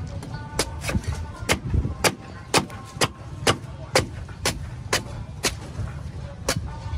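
Cleaver chopping the husk off a young green coconut on a wooden block: sharp chops about twice a second, ending shortly before the end.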